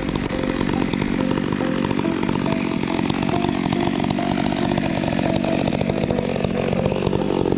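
Gas chainsaw running steadily while cutting wood, its engine pitch sagging slightly under load near the end.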